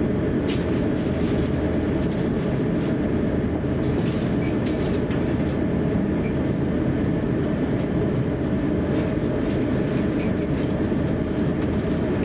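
Steady low rumble inside the cabin of an Airbus A350-900 taxiing, with scattered light clicks and rattles.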